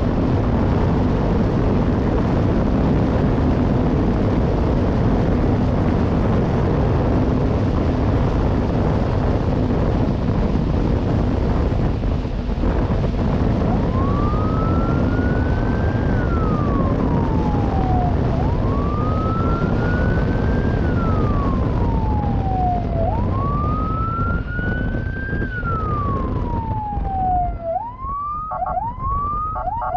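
Steady loud rush of wind and road noise, then from about halfway a police siren wailing, rising and falling slowly three times, before switching to a fast yelp near the end.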